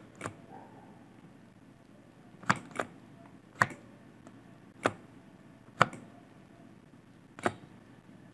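Sharp single clicks at a computer while modelling, about seven in all: a quick pair about two and a half seconds in, the rest single, roughly a second apart, over faint steady hiss.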